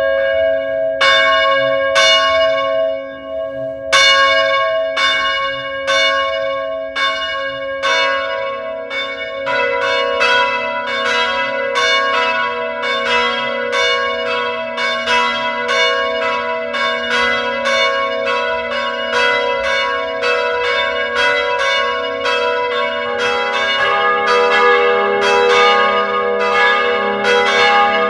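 Church bells ringing. At first a bell is struck about once a second; from about eight seconds in, more bells join in a faster, overlapping peal, and a deeper bell enters near the end.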